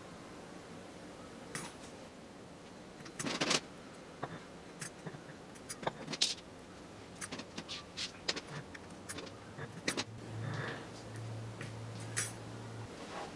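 Steel bicycle spokes clicking and jangling as they are handled and threaded one by one through the flange holes of a bicycle hub motor, with a louder clatter about three and a half seconds in. A low steady hum comes in for about two seconds near the end.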